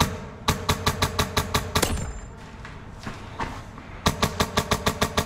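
Airsoft rifle firing two quick strings of shots, about six a second, with a couple of single shots between them.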